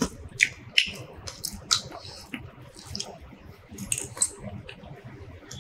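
Eating sounds: chewing and lip smacks, and the squelch of fingers mixing rice and curry, as a string of irregular short clicks and smacks.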